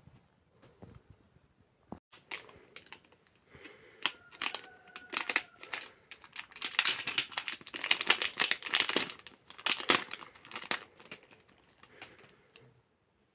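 Plastic packaging crinkling and rustling as it is handled and opened, in dense crackly bursts that are loudest in the middle and die away near the end.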